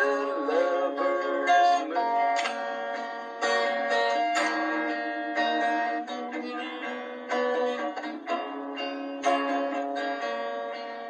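Acoustic guitar being strummed, chords ringing between the strokes.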